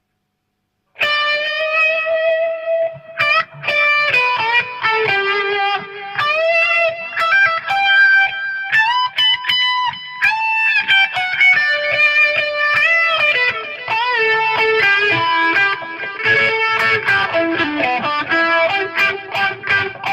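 Overdriven electric guitar, a Fender American Special played through a Hiwatt Maxiwatt 50 amp, playing a sustained lead solo with string bends, starting about a second in.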